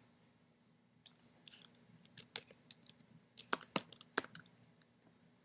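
Faint typing on a computer keyboard: an irregular run of key clicks that starts about a second in and stops about four seconds in.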